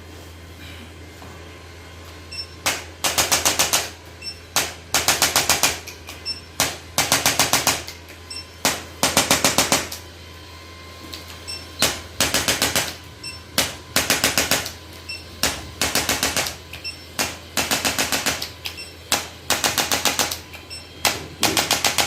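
Rapid percussive tapping in bursts of about a second, each a quick even string of strikes, repeating about every two seconds with single sharp clicks in between, as the patient's back is worked on during chiropractic treatment.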